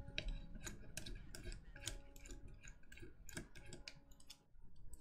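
Screwdriver working the small screws on the underside of a keyboard case: a run of light clicks and ticks of metal on metal, with a brief lull near the end.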